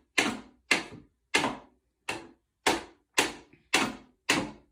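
A steady series of sharp taps or knocks, about two a second, evenly spaced.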